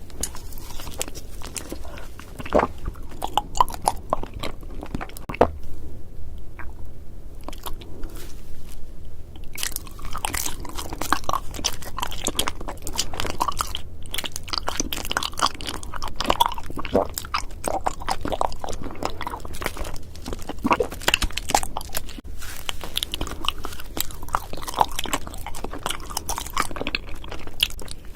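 Close-miked eating of honey jelly candy and cotton candy: crisp biting and crunching with chewing, in irregular bursts of crackle, easing off for a few seconds near the start before picking up again.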